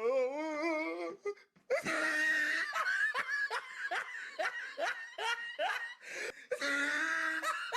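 Hearty laughter: a long wavering laugh, then a run of short, rhythmic 'ha' bursts at about two or three a second.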